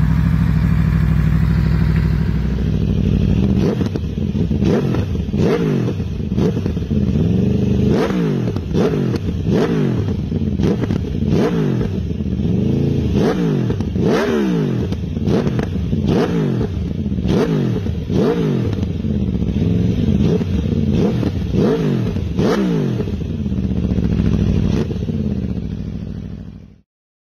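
Aprilia Tuono V4's V4 engine through an SC Project SC1-R exhaust, running steadily for a couple of seconds and then revved in a long series of quick throttle blips, each a sharp rise and fall in pitch about once a second. The sound cuts off suddenly near the end.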